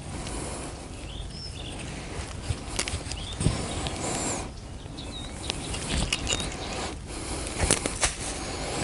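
Rustling and irregular sharp clicks from an abandoned fishing net being worked and hauled in by hand.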